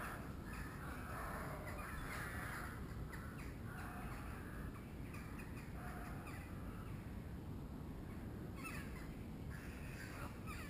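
Harsh, croaking bird calls, repeated through the first half and again near the end, over a steady low rumble.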